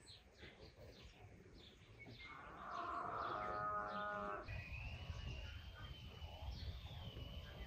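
A cow mooing once, a drawn-out call of about two seconds, after some short bird chirps. A thin, wavering high tone runs on after the moo.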